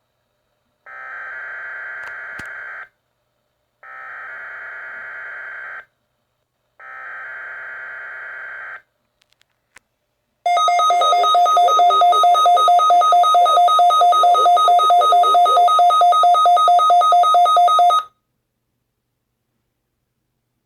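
Emergency Alert System SAME header sent three times as raspy digital data bursts of about 2 s each, a second apart. Then comes a loud two-tone attention alarm, pulsing rapidly for about seven seconds before it cuts off: the opening of an emergency alert broadcast.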